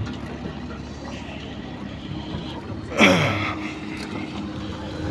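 Outdoor car-lot background: a steady low hum of vehicles and distant activity. About three seconds in comes a loud, sudden, short sound that drops in pitch.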